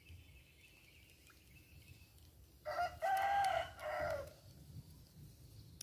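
A rooster crows once, about three seconds in: a short first note, then a long held call that drops away at the end.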